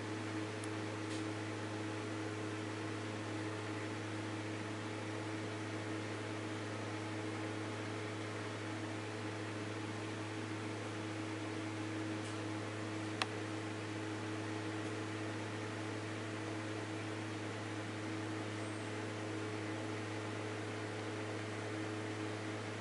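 Steady low electrical hum with a faint hiss over it, and one small sharp click about halfway through.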